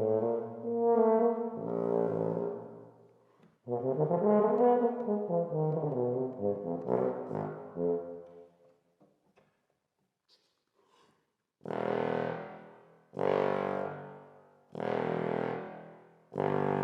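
Tuba played with a mute: two short melodic phrases, then after a pause of a few seconds four separate notes, each fading away.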